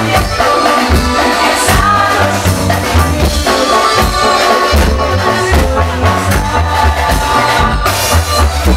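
Live Mexican dance band playing loud amplified music: drum kit and a heavy bass line keep a steady dance beat under keyboards, with a singer's voice on top.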